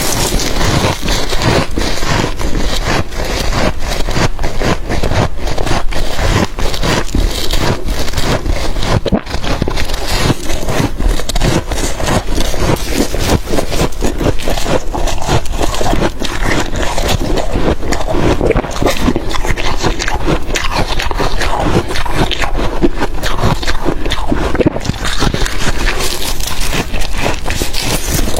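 Freezer frost being chewed close to the microphone: dense, unbroken crunching and scraping throughout.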